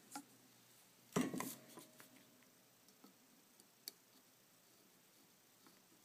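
Small metal parts and hand tools handled on a workbench during soldering: a short cluster of clicks and clinks about a second in, then a few faint, sharp ticks.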